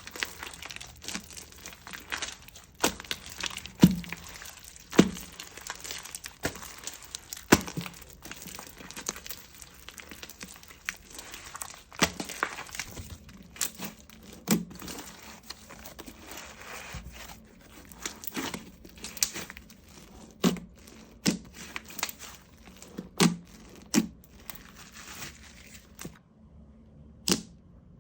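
Slime being worked by hand: irregular sharp pops and clicks, one or two a second, over a soft crackling rustle.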